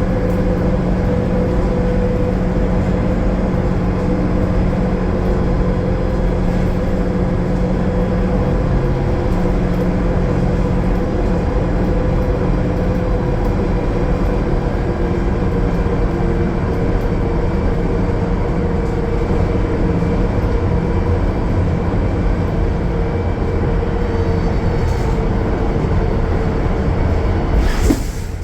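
Cummins ISL9 diesel engine of a Gillig Low Floor transit bus running steadily under way, with a steady whine over the drone. Just before the end a short burst of hiss, after which the engine sound drops.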